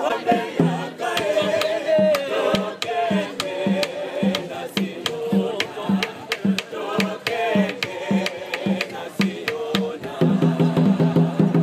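A choir singing with drums: an even drumbeat of about two strokes a second with sharp clicks over it, and quicker, denser drumming near the end.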